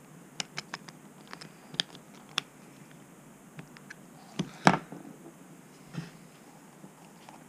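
Light clicks and ticks of a metal nut driver working small nuts on a plastic RC truck axle part, with a louder knock a little past the middle as the part or tool is handled.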